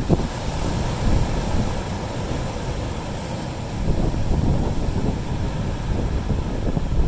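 Strong wind buffeting the microphone over sea waves washing against rocks: a constant low rumble that swells and eases in gusts.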